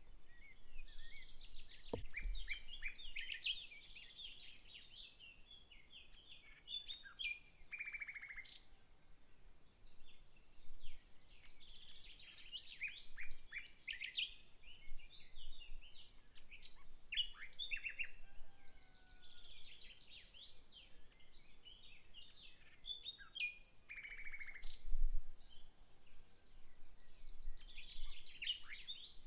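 Garden songbirds singing, a short song of quick chirps and trills repeated every few seconds, some ending in a buzzy falling note. Two brief low thumps, about two seconds in and a few seconds before the end.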